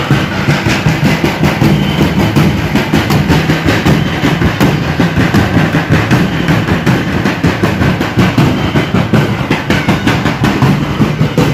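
Several large drums carried by marchers, beaten together in a fast, steady rhythm.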